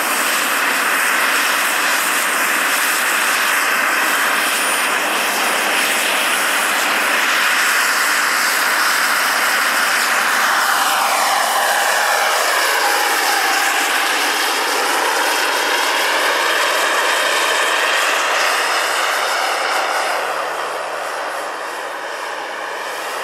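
Turbine-powered radio-controlled BO-105 scale model helicopter running: a steady jet-like hiss and whine of the model turbine with the rotor. About ten seconds in, a falling, swerving whine comes through as it lifts off, and the sound drops a little near the end as it climbs away.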